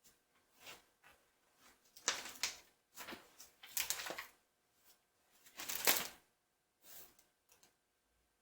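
Paper pages of a book being leafed through: several brief, irregular rustles and flips.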